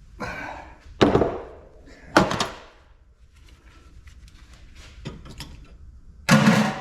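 Metal parts of a dismantled ice maker being knocked and set down: two sharp knocks about a second apart, a few light clicks, then a louder clanking thump near the end.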